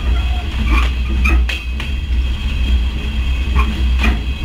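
Rail car's wheels and bogie running on track, heard close from beneath the car: a loud steady low rumble broken by several sharp, irregularly spaced clacks as the wheels strike rail joints.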